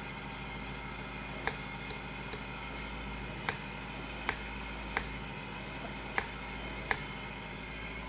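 Six short, sharp clicks spread over several seconds as a small metal hose fitting is handled against the top of a blow-off valve, over a steady hum.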